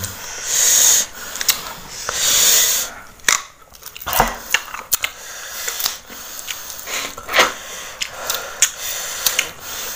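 Three long, loud hissing breaths through the mouth in the first three seconds. Then crisp crunching and chewing, with many sharp cracks, as raw cassava is bitten.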